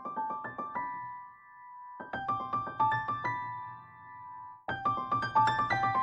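Background music on piano: a melody of single struck notes that starts over about two seconds in and becomes fuller, with a low accompaniment, near the end.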